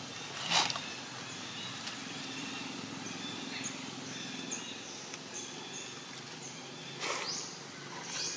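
Outdoor ambience with a steady low hum. A short burst of rustling about half a second in, faint high chirps repeating every half second or so through the middle, and another brief rustle with a rising sweep near the end.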